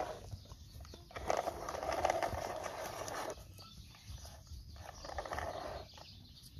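Plastic toy excavator pushed by hand through loose dry dirt, its tracks and body scraping and crunching the soil in several bursts, the longest about two seconds.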